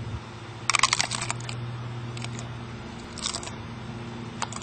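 A hard taco shell crunching as it is bitten into: a burst of crackling crunches about a second in, then a few shorter crunches as it is chewed.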